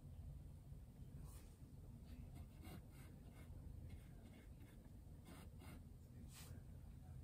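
Faint, short, scratchy strokes of a thin paintbrush on a canvas panel, coming in quick irregular dabs through the middle, over a low steady room hum.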